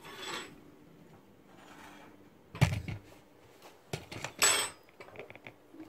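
Kitchen handling sounds around a stainless steel cooking pot and utensils: a dull knock about two and a half seconds in, a short scrape a couple of seconds later, and faint small clicks near the end.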